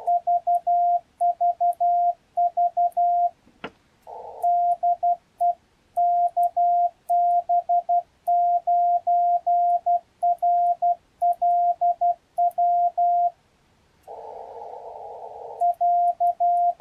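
A ham transceiver's CW sidetone, a steady single-pitch beep keyed in Morse code dits and dahs from a 3D-printed paddle key. In the pauses in sending, the radio's receiver hiss comes through its narrow CW filter, briefly about four seconds in and for over a second near the end. There is one sharp click just before the first pause.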